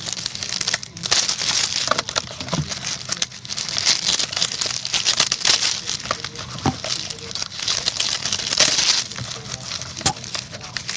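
Plastic shrink wrap crinkling and tearing as a sealed box of trading cards is unwrapped and handled: steady rustling with a few light knocks.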